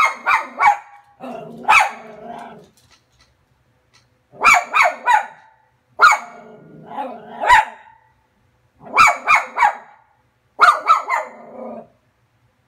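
Cairn terrier barking sharply in quick clusters of two or three barks every couple of seconds, with short pauses between them. The dog is barking at a person shown on the TV screen.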